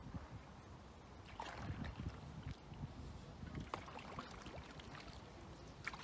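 Paddle strokes of a wooden Greenland paddle in shallow lake water among lily pads, splashing and dripping a few times, against a low steady rumble.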